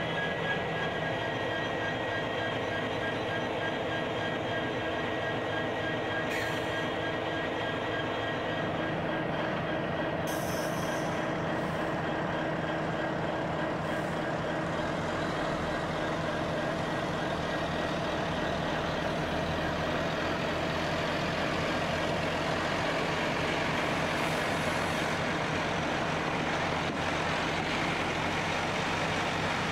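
Diesel locomotives idling steadily, joined by the diesel engine of a road fuel tanker truck as it pulls up alongside. Short hisses of air sound a few times.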